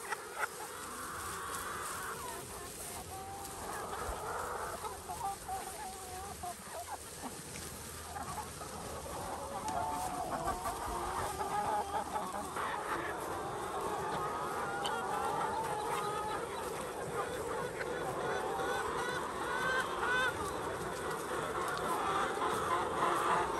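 Many birds calling over one another, a busy chorus of short calls that grows slowly louder.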